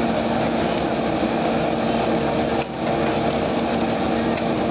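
Small engine of a hydraulic rescue tool power unit running steadily at a constant speed, with a brief dip in level about halfway through.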